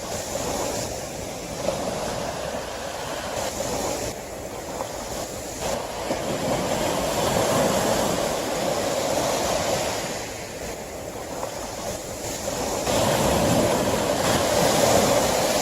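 Sea waves washing in and out, a steady rush of surf that swells louder twice, about halfway through and near the end, then eases back.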